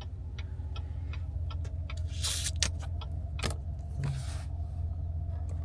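Turn-signal indicator ticking steadily, about three ticks a second, over the low hum of the 2015 Cadillac Escalade's idling V8. Two brief rushes of noise come about two and four seconds in.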